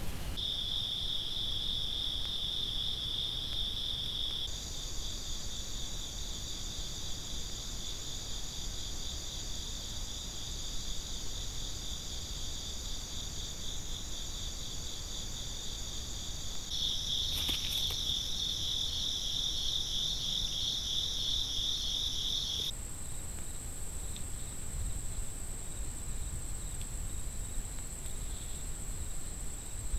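Insects chirping in a steady, pulsing high chorus, recorded on a trail camera's microphone. The chorus changes abruptly several times as the clips cut, with a brief click a little past halfway. Near the end it gives way to a single higher, steady whine.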